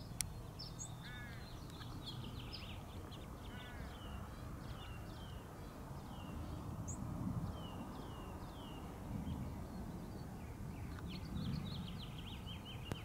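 Small birds chirping in short falling notes, with two harsh caws in the first four seconds, over a low rumble of wind on the microphone that swells a few times.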